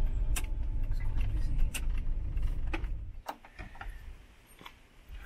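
A vehicle's engine running with a low rumble that drops away about three seconds in, with scattered sharp clicks.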